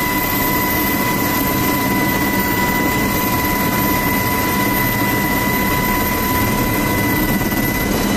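MH-60R Seahawk helicopter running on deck, heard from inside its cabin: a loud, steady engine and rotor noise with a steady high whine over it.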